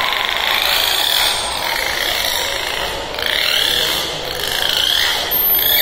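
Dolphins whistling: several squealing calls that swoop up and down in pitch, strongest a few seconds in, over a steady hiss.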